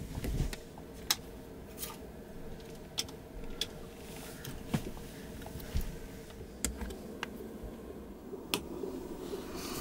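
Scattered small clicks and taps as light fittings are handled and fixed to a wooden ceiling, about eight of them at irregular intervals. A soft rustle of a blanket comes at the start, and a steady low hum runs underneath.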